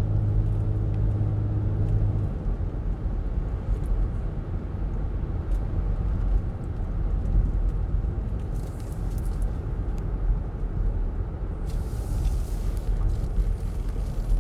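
Car cabin noise while driving: a steady low road rumble, with an engine hum for the first couple of seconds. A brighter hiss comes in briefly around the middle and again near the end.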